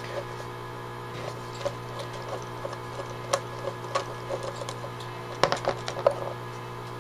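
Light metallic clicks and taps as small carburetor parts and hand tools are handled on a plastic work tray, over a steady low hum. A cluster of louder clacks comes about five and a half to six seconds in, as a screwdriver is picked up from among the tools on the tray.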